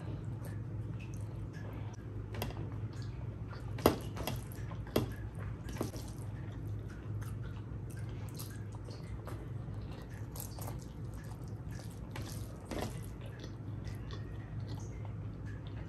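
Wet, sticky eating sounds of rice and curry being eaten by hand: chewing, lip smacks and squelches, with scattered sharp clicks, the loudest about four and five seconds in.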